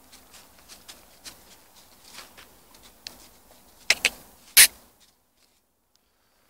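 Light rustling and crunching of dry fallen leaves as a German Shepherd puppy noses and steps through them, then a quick double scuff and a louder, sharper scrape about two-thirds of the way through.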